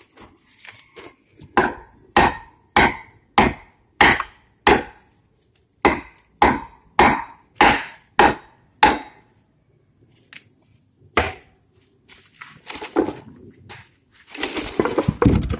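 Hatchet chopping into a cork oak log: about a dozen sharp wooden knocks, roughly two a second, then a pause and a single knock. A rougher scraping, splintering noise follows near the end.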